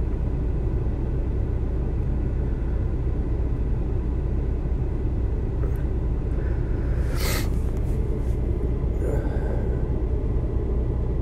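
Steady low rumble of workshop background noise, with one brief sharp hiss or scrape about seven seconds in.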